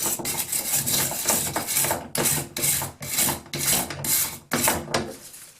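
Rhythmic rubbing strokes on a vintage metal drill bit, about two a second, as it is scrubbed or wiped down after a rust-removal bath.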